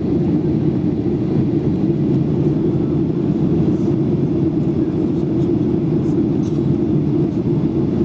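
Steady cabin noise of a Boeing 737-800 in flight, heard from a window seat over the wing: its CFM56 engines and the rushing airflow make an even, low, dense rumble that does not change.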